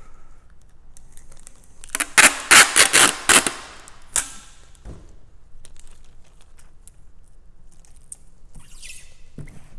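Packing tape pulled off the roll in a handheld tape dispenser: a loud, rapid ripping screech lasting about a second and a half, then one shorter rip about four seconds in.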